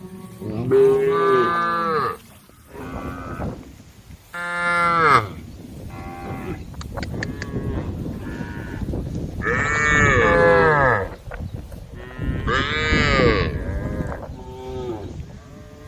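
Group of cows mooing, the calls overlapping: four loud moos among several quieter ones.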